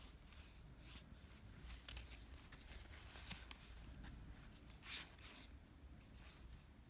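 Faint rustling and sliding of trading cards being handled and flipped through, with one short, sharper rustle about five seconds in.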